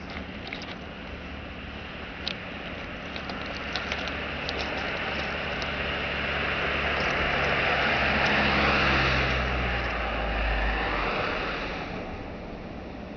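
Distant diesel locomotives, an M62 and a TEM2 heading a coal freight, running toward the listener: a steady low engine hum with a rushing noise above it that swells to its loudest about two-thirds of the way through, then the low hum drops away.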